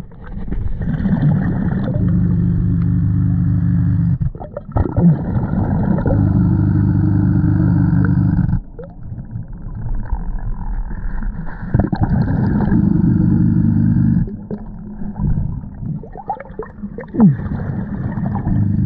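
A scuba diver breathing underwater through a regulator fed by a Nomad surface air pump. Long stretches of exhaled bubbles, about four seconds each, come three times, with quieter gurgling in between.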